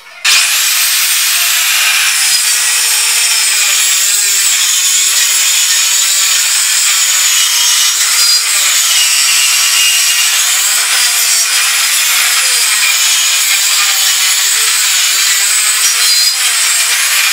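Electric circular saw cutting a long straight line through a sheet of plywood. It starts abruptly near the beginning and runs loud and steady, its motor note wavering slightly as the load on the blade changes.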